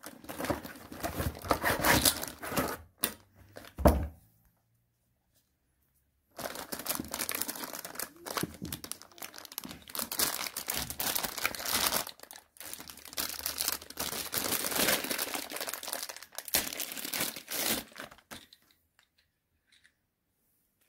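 Cardboard box being opened and clear plastic packaging crinkling and tearing as parts are unwrapped by hand. A single thump about four seconds in, then a short gap with no sound before the crinkling starts again.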